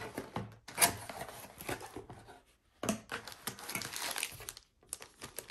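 Cardboard box flaps being opened and handled, with the crinkling of a plastic bag holding a cable, in irregular rustling bursts with a sharp click under a second in.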